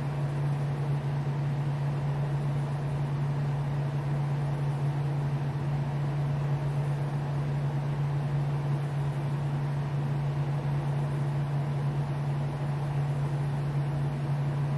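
Steady low electrical or motor hum with a faint hiss underneath, unchanging throughout.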